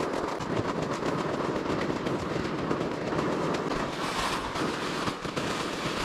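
ATV running as it is ridden across lake ice: a steady engine rumble with a continuous rattle and clatter.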